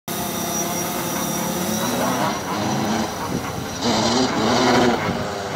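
White DJI Phantom quadcopter flying close by, its propellers giving a steady buzz with a thin high whine. The pitch rises and falls a couple of times as it manoeuvres.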